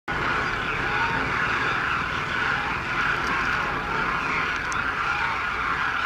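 A large flock of common and demoiselle cranes calling all at once: a dense, unbroken chorus of overlapping calls.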